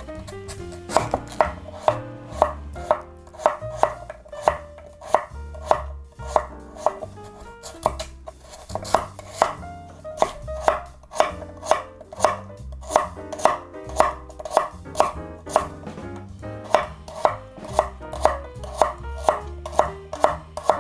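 Chef's knife cutting through Korean radish and striking a wooden cutting board. The sharp knocks come at a steady pace of about two a second, each with a short ring.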